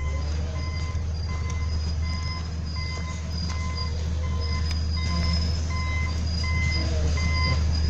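Backhoe excavator running nearby: a steady low diesel drone with a repeating electronic warning beep that grows clearer from about halfway through.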